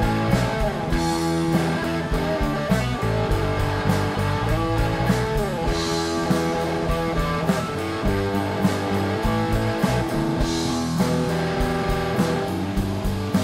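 A live blues-rock band playing without vocals: electric guitar and bass guitar over a drum kit keeping a steady beat.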